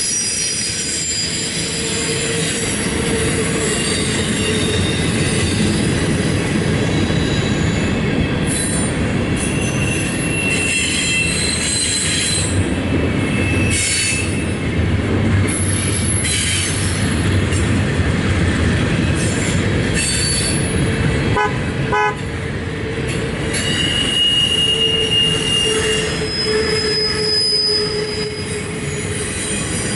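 Double-stack intermodal train's container well cars rolling past: a steady rumble of wheels on rail, with high wheel squeals that come and go. A short rapid run of clicks comes a little past the middle.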